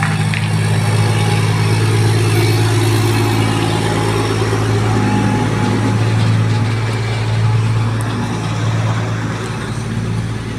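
Large excavator's diesel engine running steadily as the machine moves along the road, a deep, even hum that eases slightly near the end.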